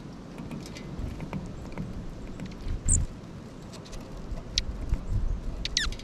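Gusting wind rumbling on the microphone, under scattered small clicks and taps of birds at a feeder. A short high chirp comes about three seconds in, and a quick falling bird call near the end.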